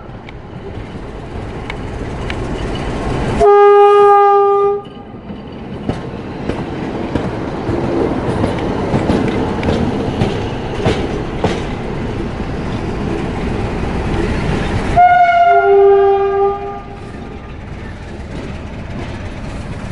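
CFR Class 60 diesel-electric locomotive running close by, its diesel engine and wheels on the rails making a loud, noisy rumble with a few sharp clicks. Its horn sounds twice: a chord lasting over a second about three and a half seconds in, and a blast of nearly two seconds at about fifteen seconds that starts on a higher note before a lower one joins.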